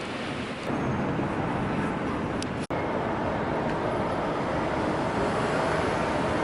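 Steady city street noise of passing traffic, with a split-second drop-out about two and a half seconds in.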